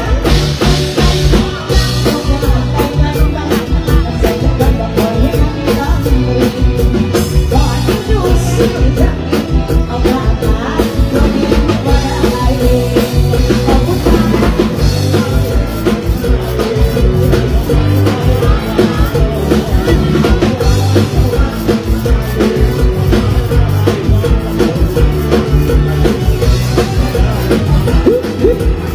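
Live Isan mor lam band music played loud over the PA, with a steady drum-kit beat and bass under a singing voice.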